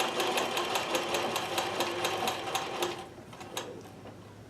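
Consew sewing machine stitching through felt at a fast, even rate of needle strokes over a steady motor hum, stopping about three seconds in.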